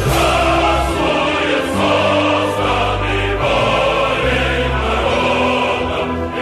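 Dramatic trailer-style music with a choir singing over deep held bass notes that change every second or two.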